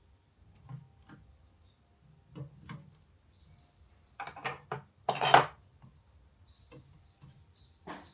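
Scattered clinks and knocks of metal and wood objects being handled and set down, with a louder scraping knock about five seconds in and a few brief high squeaks.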